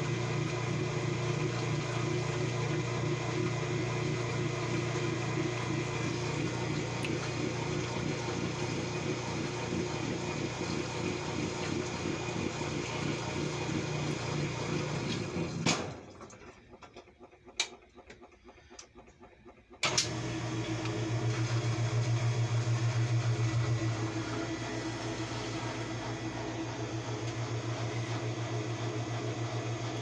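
Kenmore top-loading washing machine running: a steady motor hum with a fine pulsing texture. About halfway through it cuts out almost to silence for about four seconds, with a few sharp clicks, then starts up again.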